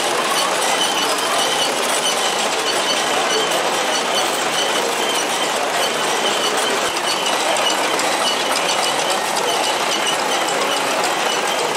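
Belt-driven tin fairground toys and their toy steam engine running: a steady, rapid mechanical whirring and clatter.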